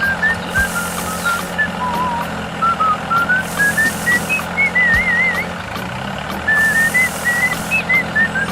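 Background music carried by a whistled melody that wanders up and down with warbling trills, over a regular beat and a steady low hum.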